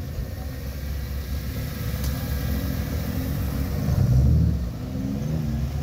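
Lifted Suzuki Jimny on large off-road tyres driving past on gravel. Its engine note bends up and down and is loudest as it passes close, about four seconds in.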